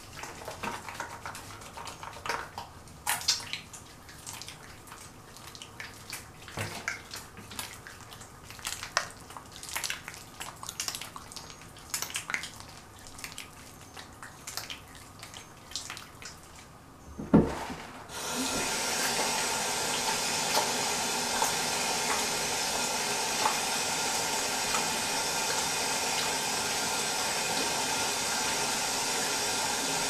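Small clicks, taps and rustles of things being handled, then a single sharp knock about two-thirds of the way in, after which a tap runs steadily into a sink.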